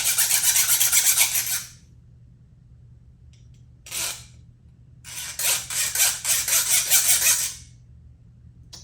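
Small hand saw rasping back and forth on a thin steel plate: a run of rapid strokes that stops a couple of seconds in, one short stroke around four seconds, then another run from about five to seven and a half seconds. Its wood-cutting blade scrapes at the steel rather than cutting it well.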